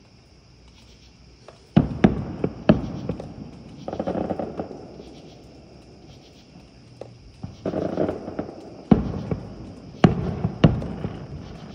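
Distant fireworks going off: a quick run of sharp bangs about two seconds in, spells of dense crackling around four and eight seconds, and three more bangs near the end, each fading into a rumbling echo.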